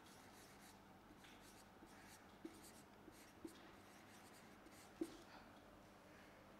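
Faint scratching of a marker pen writing on a whiteboard, with a few brief louder ticks, the loudest about five seconds in.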